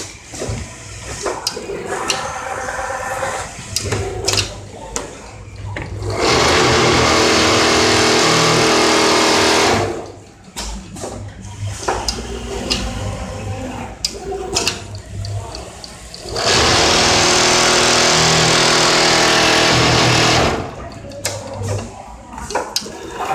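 Richpeace automatic template sewing machine with auto loader at work: clicking and clattering, broken twice by a loud, steady rushing noise lasting about four seconds each time.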